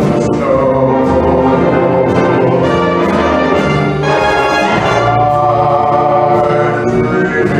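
Orchestral music with brass and singing, a swing-style holiday arrangement.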